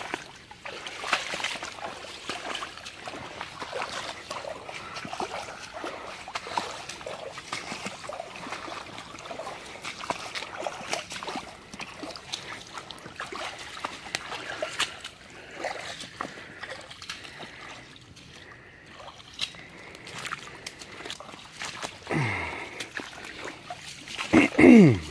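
Floodwater splashing and trickling, with many small crackles. Near the end come two short sounds that fall steeply in pitch, the second the loudest.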